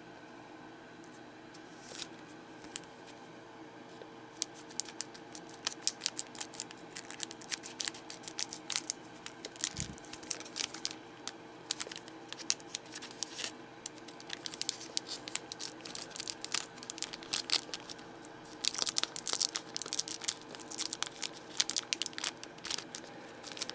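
A trading-card booster pack wrapper crinkling and crackling in irregular bursts as fingers work at a stubborn, well-glued seam, growing busier and denser near the end.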